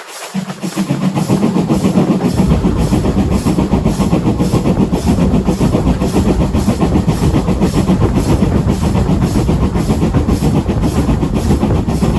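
Background rock music with a drum kit keeping a steady beat; the bass comes in about two seconds in.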